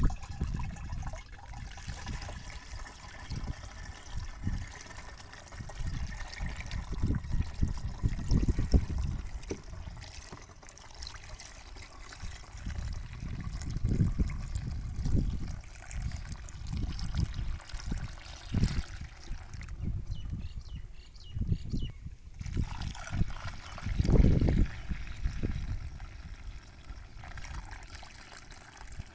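Water poured from a basin into a battery sprayer tank through its strainer basket, trickling and splashing steadily. Irregular low rumbles on the microphone run underneath, the strongest late on.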